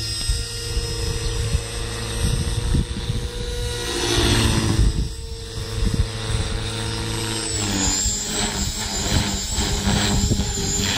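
HK450 Pro electric radio-controlled helicopter in flight: a steady whine from the motor and rotors, with a louder whoosh about four seconds in. The whine drops in pitch a little before eight seconds in, as it manoeuvres.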